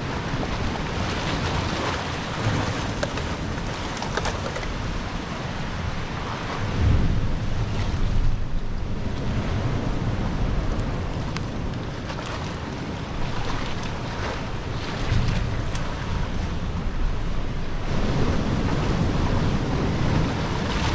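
Sea surf washing and surging against a rocky shore, swelling louder twice, with wind buffeting the microphone.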